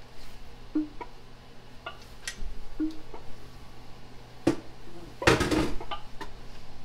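Canning-jar lids cracking with scattered sharp clicks as the hot jars of chicken cool in the opened pressure canner, the lids sealing. A louder clatter of metal comes about five seconds in.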